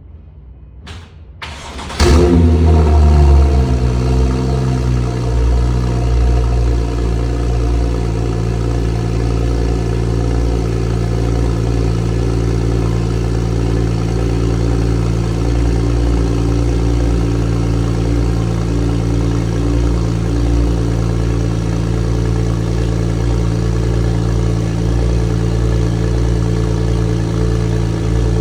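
Porsche 991 Turbo S twin-turbo flat-six with a Sasaki exhaust cold-starting: it catches about two seconds in with a loud rev flare, the revs fall over the next few seconds, and it settles into a steady cold idle.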